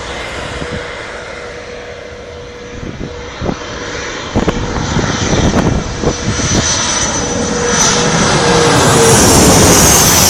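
Airliner engines growing steadily louder as a plane approaches, with a high whine and a steady lower tone over the engine noise.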